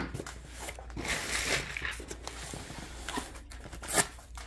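Rustling and light knocks of a cardboard box being handled on a wooden table, with two sharp clicks near the end.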